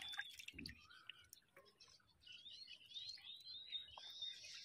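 Faint water drips and small clicks from the wet net and fish in a wooden boat, with a soft low knock under a second in. From about two seconds in, a bird chirps a run of quick high notes.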